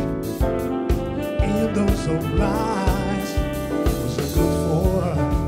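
Live soul-jazz band playing an instrumental stretch between sung lines: a drum kit keeps a steady beat of about two strikes a second under bass and keyboards, with a trumpet and saxophone carrying the melody.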